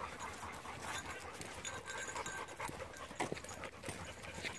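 Dogs panting close by, with footsteps crunching on a dirt trail and a single sharp knock a little over three seconds in.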